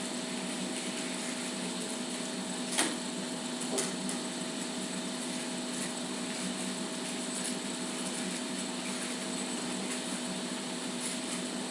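Steady room hum and hiss, with two faint short clicks about three and four seconds in.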